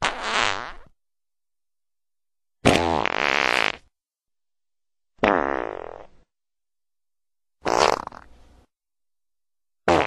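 Fart sound effects played one after another: four farts of about a second each, roughly two and a half seconds apart with dead silence between, and a fifth, shorter one starting right at the end.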